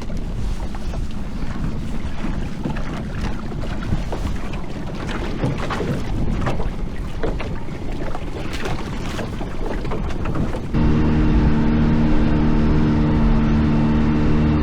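Wind buffeting the microphone, with water slapping and splashing against a small fishing boat. About eleven seconds in, the sound cuts abruptly to a louder, steady motor hum.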